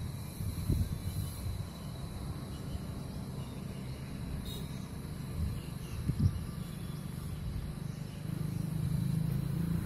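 Outdoor ambience: a steady low rumble with a few soft bumps, and a faint, thin high tone held throughout.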